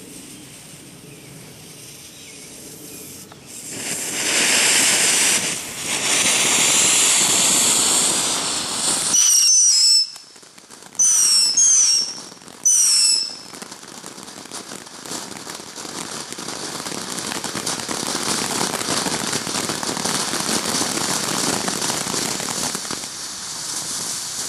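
Killer Bee consumer firework fountain burning. A soft hiss at first flares about four seconds in into a loud rushing hiss of sparks. Around ten to thirteen seconds in come three or four short whistles falling in pitch, then a steady spraying hiss.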